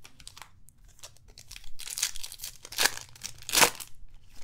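Foil wrapper of a Bowman Chrome trading-card pack being torn open and crinkled by hand in a few short rips, the loudest about three and a half seconds in.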